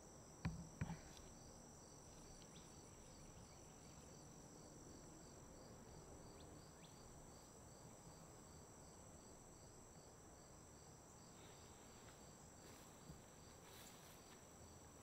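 Faint insect chorus in a summer field: a steady high trill with an evenly repeating chirp about twice a second, over low outdoor background noise. Two soft knocks sound about half a second in.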